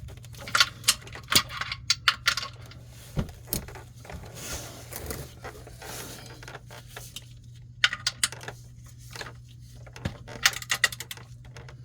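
Sharp metallic clicks and clinks of hand tools in several short clusters, over a low steady hum: a wrench snugging the oil drain plug down onto its new copper crush washer.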